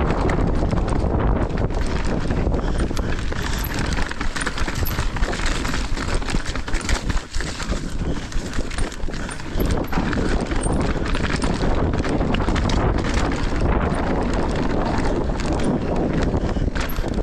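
Mountain bike riding down a rocky dirt trail: tyres rolling over dirt and rock, with frequent knocks and rattles from the bike over the bumps.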